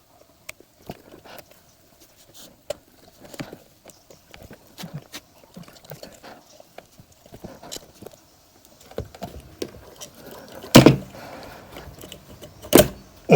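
Scattered small clicks, taps and knocks of dishwasher parts and tools being handled during disassembly, with two loud knocks near the end.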